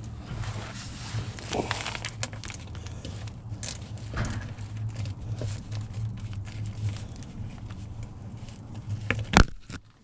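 Hand tools and metal parts being worked under the car: scattered clicks and light clanks, with one loud sharp knock about nine seconds in, over a steady low hum.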